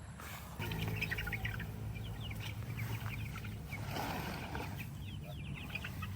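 Young chickens peeping and chirping rapidly, many short high calls over a low steady hum that comes in about a second in.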